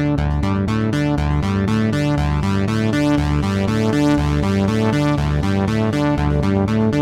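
Arturia OB-Xa V, a software emulation of the Oberheim OB-Xa polyphonic analog synthesizer, playing a fast sequenced pattern of short notes over a bass line that changes pitch about twice a second.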